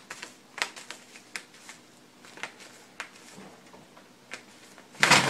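A cat clawing and pawing at a small mat on a wooden floor: a run of sharp, irregular scratches and clicks. About five seconds in, a sudden loud burst of noise cuts in.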